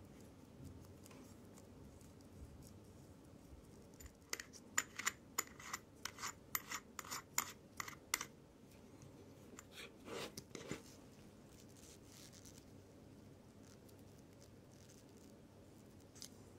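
Small sharp metallic clicks from a wristwatch's steel caseback being fitted and turned on by hand, about a dozen at roughly three a second, then a duller scrape of metal on metal.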